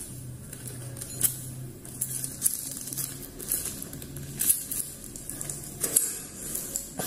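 Scattered light clicks and taps of metal oscillating multi-tool blades being handled and set down, over a faint steady low hum.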